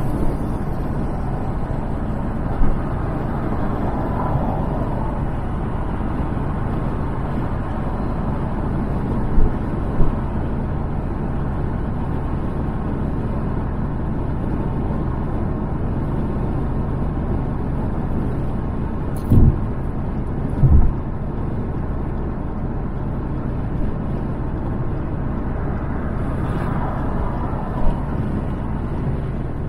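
Steady road and engine noise of a car cruising on the freeway, broken by several short low thumps.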